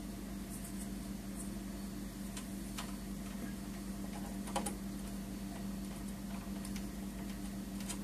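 Scattered light clicks and taps as hands fit an M.2 SSD into a motherboard's M.2 slot, over a steady low hum. The most distinct click comes about four and a half seconds in.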